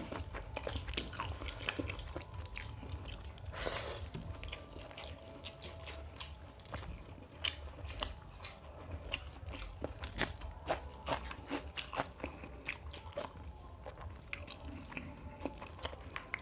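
Two people eating mutton biryani with their hands: wet chewing and lip smacks close to a clip-on microphone, with fingers mixing the rice on the plates, making many small irregular clicks.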